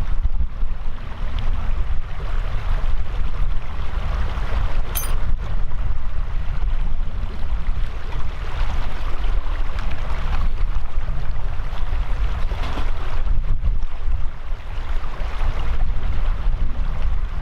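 Wind buffeting the microphone over the steady rush of a river, with one sharp click about five seconds in.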